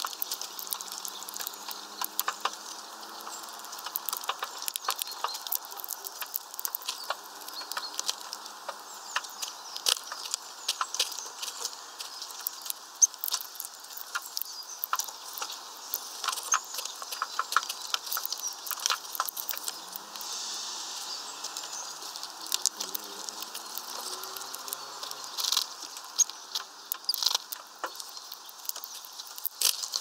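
European greenfinches feeding on sunflower seeds at a feeder tray: a dense, irregular patter of sharp clicks and taps from beaks cracking husks and pecking at the tray.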